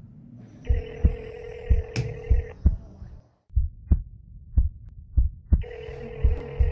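A heartbeat sound effect thudding steadily in pairs, over a phone's ringing tone heard down the line: a steady beep that sounds twice, each about two seconds long, with a pause between.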